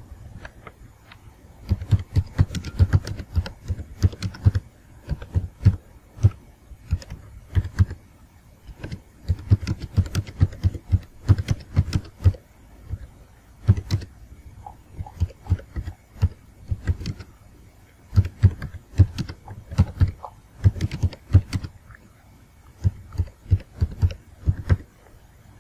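Typing on a computer keyboard: quick runs of keystroke clicks with short pauses between words and phrases, starting about two seconds in.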